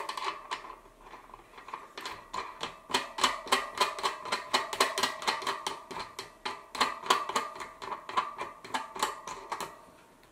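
Rapid, uneven metallic clicking with a ringing tone, from a BMX cassette rear hub as its lock nut is spun by hand onto the threaded axle. The clicking is densest in the middle and thins out near the end.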